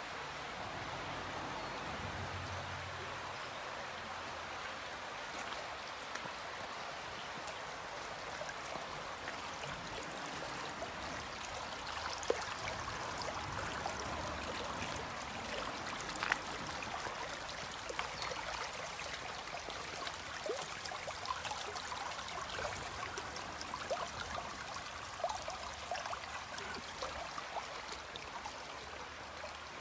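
Small river flowing over a shallow concrete sill and rocks, a steady rush of water, with scattered small clicks and splashes in the second half.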